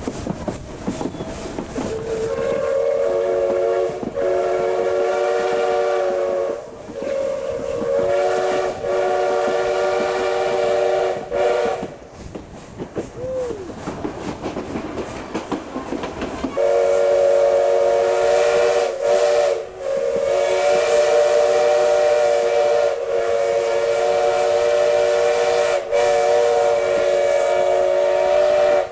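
Steam locomotive's whistle blowing long, loud blasts that sound several notes at once. The first runs from about two seconds in to about twelve, with a short break in the middle. The second starts about four seconds later and carries on with only brief dips.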